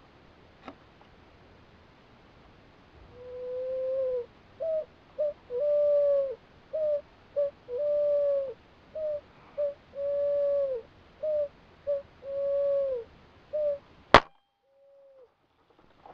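A pigeon cooing in a repeated phrase of two short notes and one long, drawn-out note, about every two seconds. Near the end comes one sharp crack from the air rifle, the loudest sound, followed by a single further coo.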